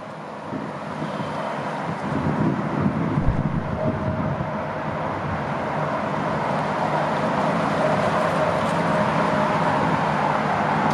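An engine running steadily with a low hum and a wash of noise, growing louder over the first couple of seconds, then holding steady.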